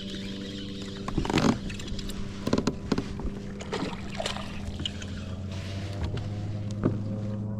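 A steady low hum, with a series of sharp splashes and knocks at the kayak, the loudest about a second and a half in.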